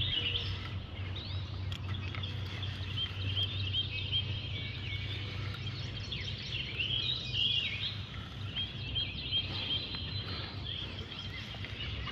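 Many birds chirping and singing over a steady low hum.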